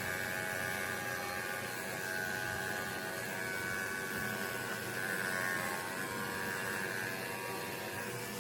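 Niakasa pet grooming vacuum running on low with its metal clipper attachment, a steady motor hum and whine as it trims the dog's tail fur and sucks the clippings away.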